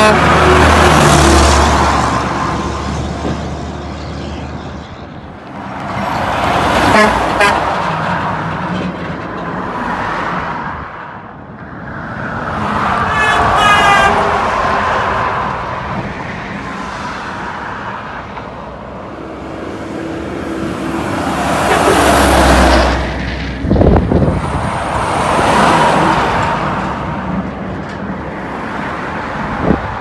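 Semi-trucks and cars passing close by one after another on a highway, about five passes, each a swell of engine and tyre noise that builds and fades over a few seconds; a vehicle horn toots among them.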